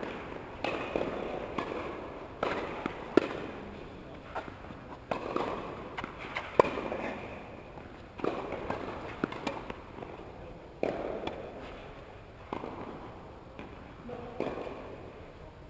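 Tennis rally on an indoor court: sharp racket-on-ball strikes and ball bounces every second or two, each echoing in the large hall.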